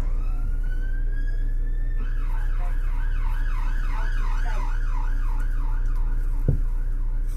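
Emergency vehicle siren: one rising sweep lasting about two seconds, then a fast up-and-down wail of about two cycles a second, over a steady low hum. A single short knock comes near the end.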